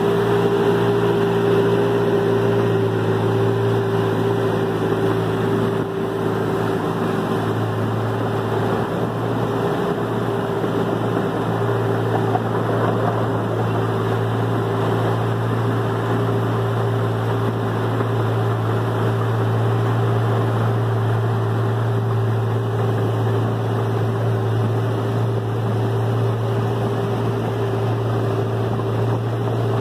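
Miniature park train's engine running at a steady, unchanging pitch under way, heard from aboard the locomotive, with a constant low drone and rumble.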